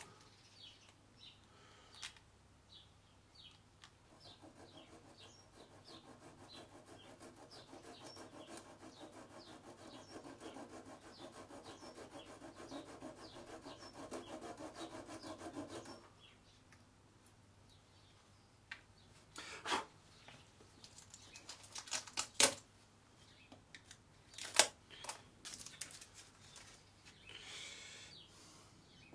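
A wood chisel scraping and paring along the edge of a guitar headstock veneer in a quick run of short strokes for about twelve seconds. Later a few sharp knocks follow.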